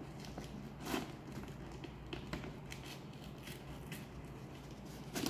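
Faint scattered clicks and crackles of a thumb working at a wax seal on a paper envelope, prying it loose. A slightly louder click comes about a second in and another near the end.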